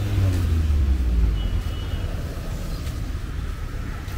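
A motor vehicle passing close by, its engine rumble strong at first and its pitch falling over the first second or two, then fading into steady background noise.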